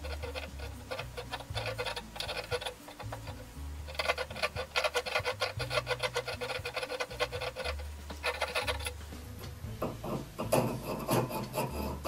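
A small steel needle file scraping in quick, short strokes along the threads of an auger bit's pilot screw. It is clearing hardened, epoxy-like compound out of the clogged threads and touching up threads that have been dubbed over. The filing comes in two long runs, broken by a short pause about three and a half seconds in, with background music underneath.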